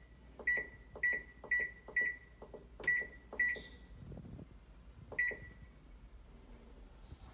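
Control-panel buttons on a Teco washing machine being pressed, each press a click and a short high electronic beep. About seven beeps come at uneven intervals, a few quick in a row, with a couple of clicks that give no beep, and the last beep falls a little past the middle.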